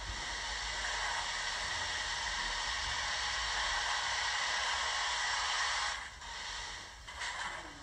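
Steady steam hiss played by a Zimo MX645R sound decoder through a small onboard speaker in a stationary Hornby Duchess model steam locomotive. It cuts off about six seconds in, followed by a short hiss near the end.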